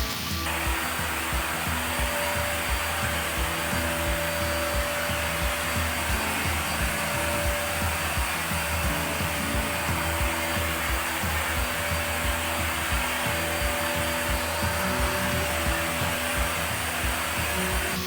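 Iris Ohyama corded canister-stick vacuum cleaner running with a steady motor hiss and a faint whine.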